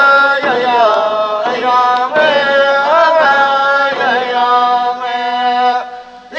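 A wordless, chant-like melody sung by a voice in long held notes, each sliding into pitch. It breaks off and fades about six seconds in.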